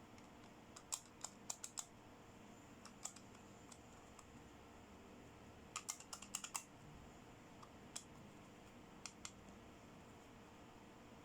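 Light clicks and taps of small plastic toy accessories being handled: a quick run of about five near the start, a tighter cluster of six or so just past the middle, then a few single ticks, over a faint steady hiss.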